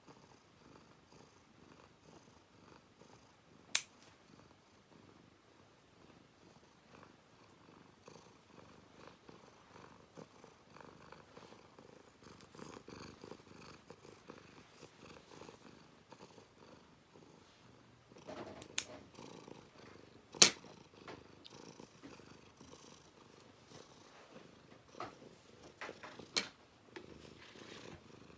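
Domestic cat purring steadily while its claws are clipped, with a few sharp clicks of the nail clipper, the loudest about two-thirds of the way through.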